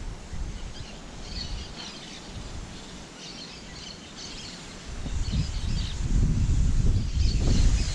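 Parakeets chattering in repeated clusters of short, high chirps. A loud low rumbling noise comes in about five seconds in.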